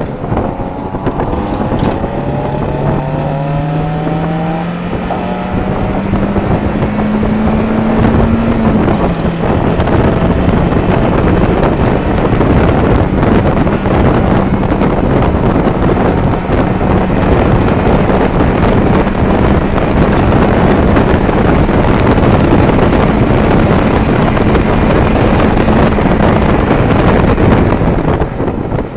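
1992 Mazda Miata's 1.6 L B6 four-cylinder engine running under wind and road noise. Its note rises steadily for several seconds, then drops about a third of the way in and holds nearly steady. The engine is one the owner says has rod knock.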